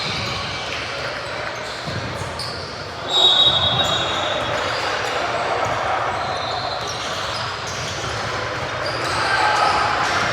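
Basketball game in a gym hall: a basketball bouncing on the court, a sharp sneaker squeak about three seconds in, over a steady murmur of spectators' voices.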